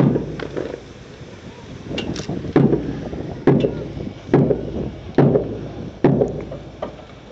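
Squad of drill recruits marching in step on a hard parade ground: boots strike together in heavy thuds, about one every 0.85 seconds, each slightly ragged where the feet land not quite in unison.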